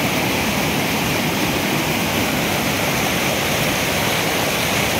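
Waterfall water rushing steadily, a loud, even noise with no breaks.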